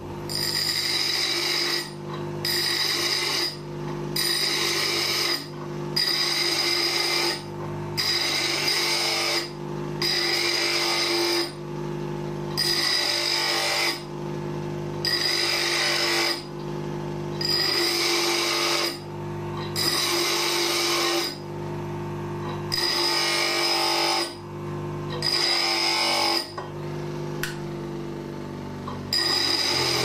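Bench grinder running steadily while a piece of metal is pressed against the spinning wheel again and again, each pass a harsh, hissy grinding burst of about a second over the motor's steady hum.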